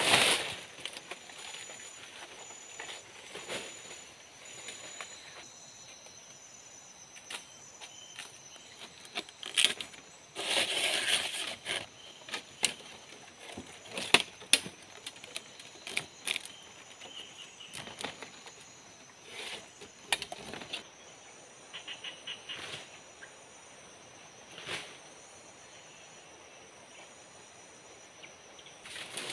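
Dry palm-leaf thatch panels rustling and crackling as they are handled and tied onto a shelter roof, with scattered sharp clicks and snaps. The loudest spell of rustling comes a little after ten seconds in.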